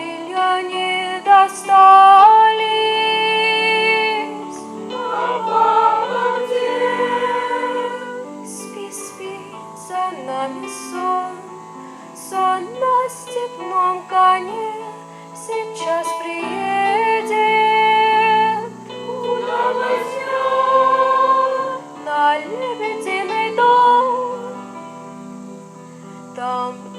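A song sung by voices, its melody moving note to note over steady lower notes underneath.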